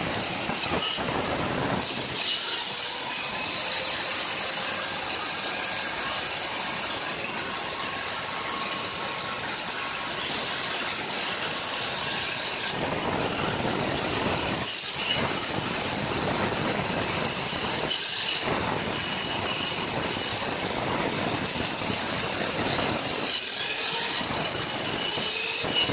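Electric angle grinder whining steadily as its disc grinds into a block of andesite stone, hollowing out the bowl of a stone mortar, with a rough grinding hiss. The sound briefly drops out about halfway through, again a few seconds later and once more near the end.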